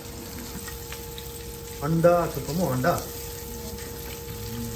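Food sizzling as it fries in oil in a pan, a steady hiss. About two seconds in, a man's voice sounds briefly over it for about a second.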